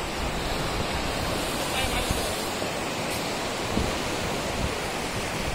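Sea surf washing in over shallow water on a sandy beach: a steady rush of water.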